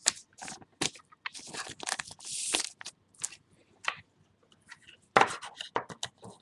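Trading cards and plastic card sleeves being handled: a quiet series of short rustles and clicks, with a longer crinkle about two seconds in and a cluster of rustles about five seconds in.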